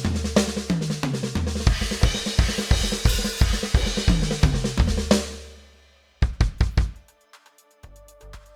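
Sampled acoustic drum kit from the Addictive Drums software, played from an Alesis Nitro electronic kit: a groove of bass drum, snare, hi-hat and crash cymbals that ends on a crash ringing out about five seconds in, followed by a short burst of hits. Near the end quieter pitched music begins.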